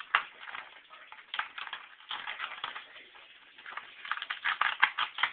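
Irregular plastic clicks and rattles as hands press and fiddle with the parts and power-cable connectors of a computer motherboard. One sharp click comes right at the start, and the clicks crowd together near the end.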